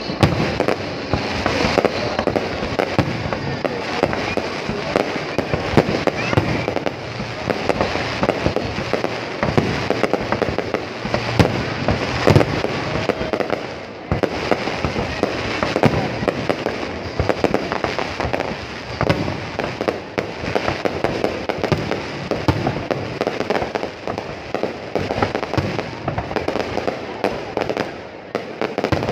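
Aerial fireworks going off in a continuous dense barrage of bangs, pops and crackling, with one sharper, louder bang about twelve seconds in.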